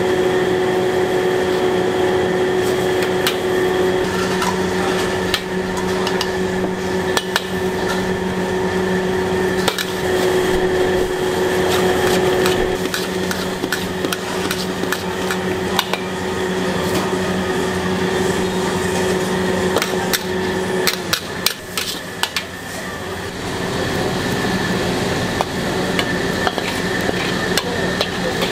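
Metal spatula clanking and scraping against a wok during stir-frying, with repeated sharp strikes over a steady hum that stops about two-thirds of the way through.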